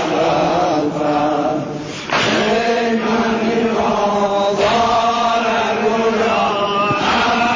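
Chanted singing of a Shia mourning eulogy (maddahi) in Azerbaijani Turkish, with long held notes and wavering melodic turns.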